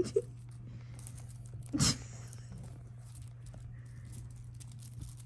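Kittens scampering and pouncing on a fabric blanket: light scratching and rustling of paws and claws on cloth, with a sharp click at the start and a short, louder scuffle about two seconds in. A steady low hum runs underneath.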